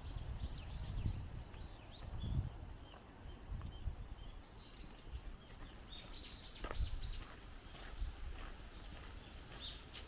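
Birds chirping, many short high calls repeated throughout, over an uneven low rumble of wind on the microphone.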